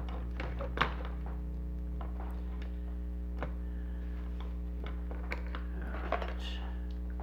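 A few light clicks and taps of plastic toy parts being handled during disassembly, spaced a second or more apart, over a steady low hum.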